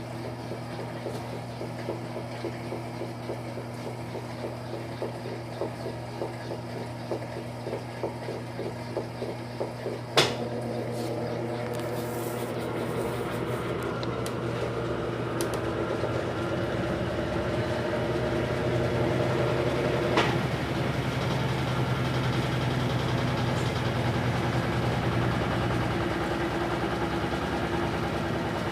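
LT13B washing machine running: a rhythmic churning about twice a second, then a sharp click about ten seconds in, after which the motor settles into a steady hum that slowly grows louder, with another click about twenty seconds in.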